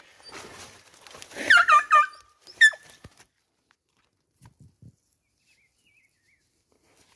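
Hunting dog yelping at an animal's burrow: a quick run of four or five high yelps, each falling in pitch, and one more a moment later, over rustling of dead leaves.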